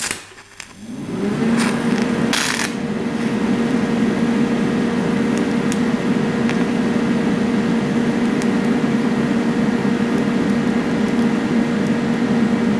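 TIG welding on steel: a sharp crackle as the arc strikes, then a sound that builds over about a second into a steady hum from the arc and welder, held without a break.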